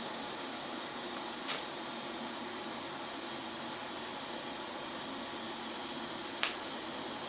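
Steady hiss with two short, sharp high-pitched crackles, about a second and a half in and again near the end, from a high-frequency-start TIG welder as the arc is struck on the steel of an old propane tank.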